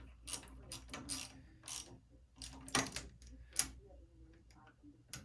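Irregular metallic clicks and short clatters from hand-worked parts of a manual metal lathe, over a faint low steady hum.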